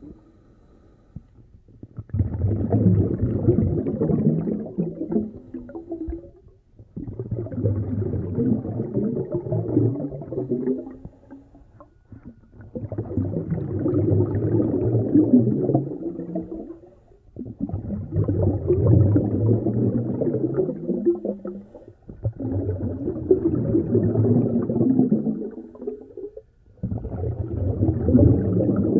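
A snorkeler breathing through a snorkel, heard muffled underwater: long rough breaths of about four seconds each, repeating roughly every five seconds with short pauses between.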